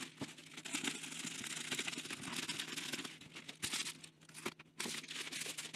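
Plastic FedEx courier bag crinkling and rustling as it is opened and handled, with a few short pauses near the end.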